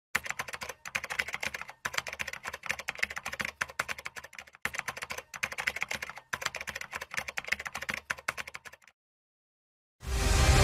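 Rapid clicking, like keyboard typing, in runs of a second or two with short breaks between. It stops near the end, and after a brief silence music comes in.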